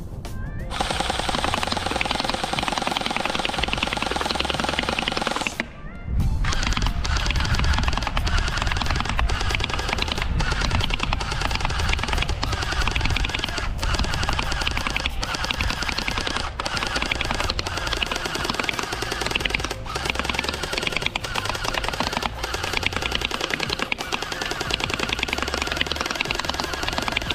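Electric gel blaster firing in rapid fully automatic bursts, under loud background music with a heavy bass beat. There is a brief drop about six seconds in.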